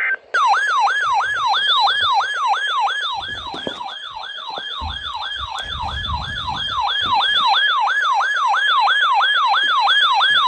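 Electronic emergency alert tone sounding like a fast siren yelp, about three falling sweeps a second, cutting off abruptly at the end. It is the alert sounding for an Emergency Alert System tornado drill, just after the data burst and before the test message.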